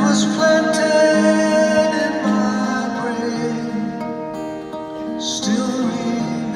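Live music: a man singing a slow, tender song over acoustic guitar.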